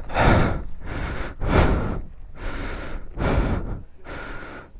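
A man breathing hard after climbing a hill on foot in full motorcycle gear in the heat, three heavy breaths about a second and a half apart.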